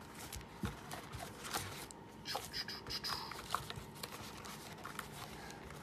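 Trading-card hobby box and its foil packs being handled: scattered soft taps, clicks and rustles of cardboard and wrappers.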